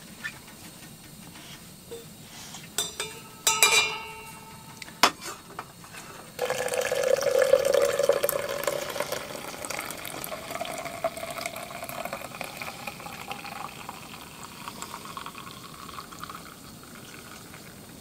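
A few metallic clinks of a spoon against a small tin and mug, then water poured from a stainless steel kettle into an insulated stainless steel travel mug, starting suddenly about six seconds in, its tone rising as the mug fills.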